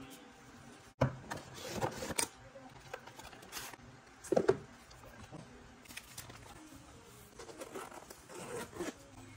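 Intermittent rustling and crinkling of plastic wrap, a plastic packing tray and paper leaflets being handled while unpacking a camera box. There are a few louder handling noises, the strongest about a second in and around four and a half seconds in.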